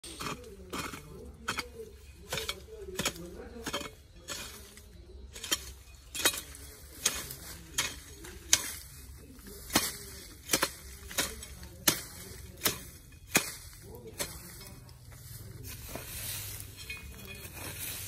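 A hoe chopping into weedy soil in a steady rhythm of sharp strikes, roughly one to two a second. The strikes stop about fourteen seconds in and give way to a softer rustling of weeds being pulled.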